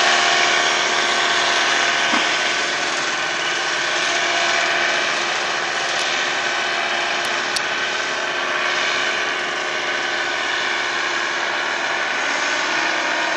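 Paramotor engine and propeller running steadily in flight overhead, loudest at the start and easing off a little as it moves away.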